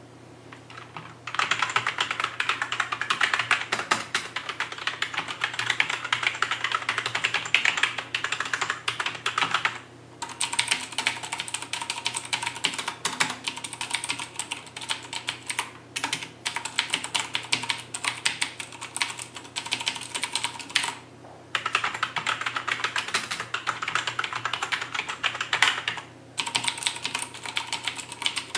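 Fast typing in several stretches with short pauses between, comparing a cheap ordinary keyboard with a CM Storm Quickfire TK mechanical keyboard whose Cherry MX Blue switches give a sharp click on each keystroke.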